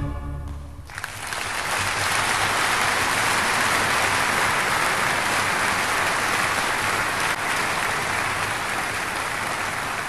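The final chord of choir, orchestra and organ dies away in the first second, then an audience breaks into steady applause.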